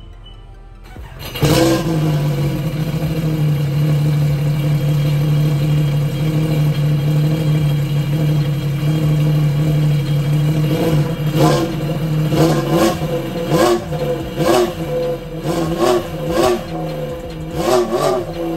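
Sea-Doo Spark's Rotax 900 ACE three-cylinder engine, breathing through a Wet Jet Performance Elite rear-exit exhaust and Evo waterbox, starts about a second in and idles steadily. In the second half it is revved in short blips about once a second.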